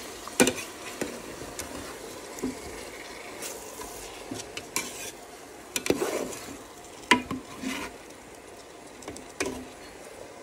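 Diced bell peppers and onion sizzling softly in a stainless steel pot while a metal spoon stirs them, scraping and clicking against the pot now and then.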